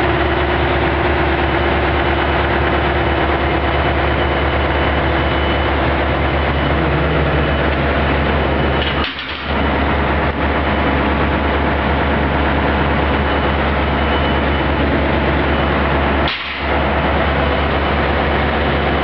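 Engine-driven Tecniwell TW 400 high-pressure grout pump unit running steadily, a loud deep engine hum with machinery noise over it, dipping briefly twice.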